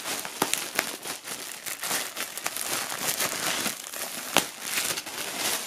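Clear plastic film wrapping torn open and crinkled by hand: a continuous crackle with many sharp snaps, the loudest about four and a half seconds in.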